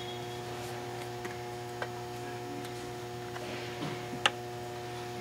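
Steady electrical hum with a few light clicks and taps as clutch parts and a small tube of thread locker are handled against the pressure plate; the sharpest click comes about four seconds in.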